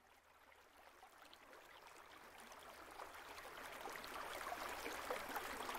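Running water, like a babbling stream, fading in from silence over the first few seconds and then flowing steadily at a low level.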